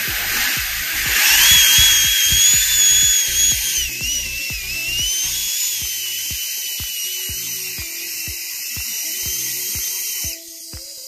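Air Shammee electric car-wash air dryer blasting air from its boom nozzle into a handheld wind meter, a loud rush of air with a high wavering whine, strong enough to max out the meter. The blast cuts off suddenly about ten seconds in. Background music with a steady beat plays underneath.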